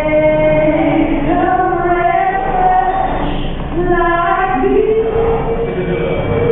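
A woman singing into a handheld microphone, holding long notes; a little after two-thirds in she starts a note that she holds on.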